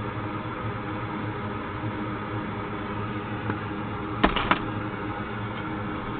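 Steady hum of a small electric fan, with two sharp clicks close together about four seconds in.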